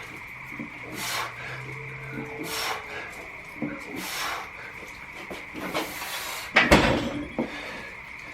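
Sharp breathy exhales about every second and a half, in time with barbell rows, then a loud thud of the loaded barbell being set down about two-thirds of the way through. A steady high trill of frogs runs underneath.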